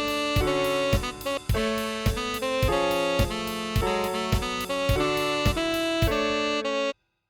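Tenor saxophone melody over a piano and drum backing with a steady beat, about two beats a second. The music cuts off abruptly near the end.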